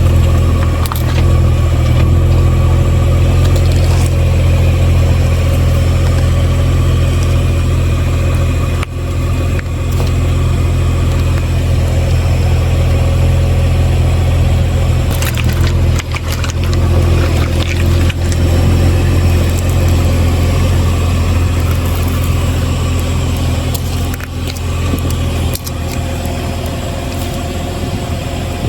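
Car engine running steadily at low revs, with a few brief sharp cracks.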